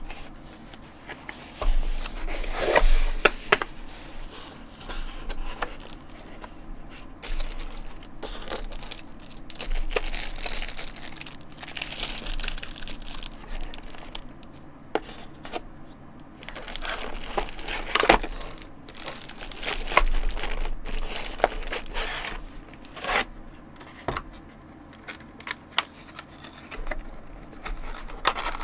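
Plastic wrapping crinkling and cardboard packaging rustling and scraping as boxed accessories are handled and lifted out, in irregular bursts with a few sharp clicks.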